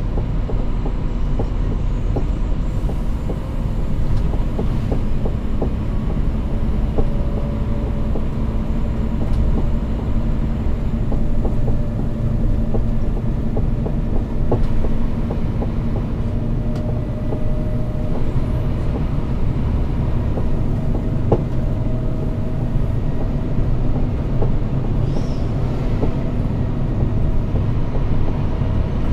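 Scania P360 6x4 truck driving, heard from inside the cab: a steady engine drone and road noise, with many light rattles and clicks.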